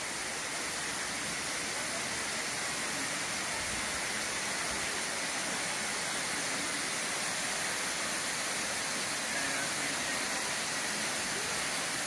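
Waterfall rushing steadily into a pool: an even hiss of falling water that does not change.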